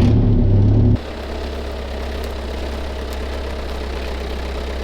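Bobcat skid steer engine running, loud and steady, then dropping abruptly to a lower, quieter steady drone about a second in.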